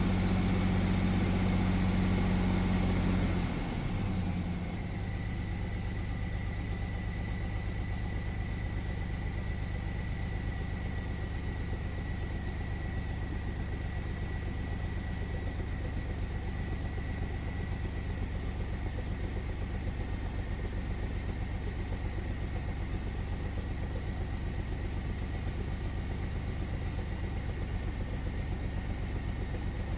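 1999 Chevy S10's 4.3-litre V6 held at about 2000 rpm, then dropping back to idle about four seconds in and running steadily there. The engine is misfiring: cylinders 4 and 6 are getting no fuel from the injector spider despite good spark.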